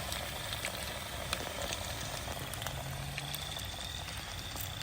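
Battered catfish frying in hot oil: a steady sizzle with scattered crackles and pops. The oil is running a little hot.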